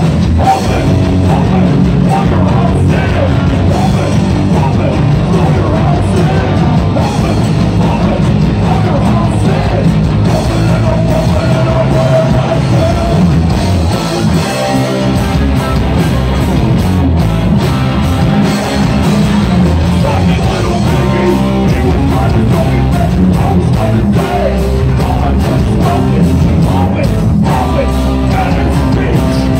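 Live punk rock band playing loudly and without a break: electric guitar, bass and drums, with a vocalist singing and yelling over them.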